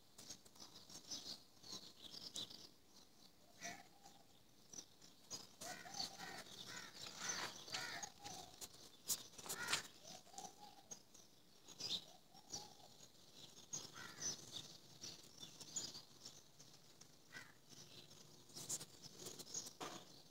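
Faint birdsong: many short, high chirps and twitters throughout, with a lower rising-and-falling call every couple of seconds.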